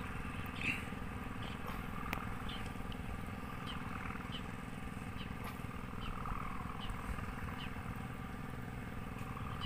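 Steady low rumble of wind buffeting the microphone over open water, with faint short high ticks every half second or so.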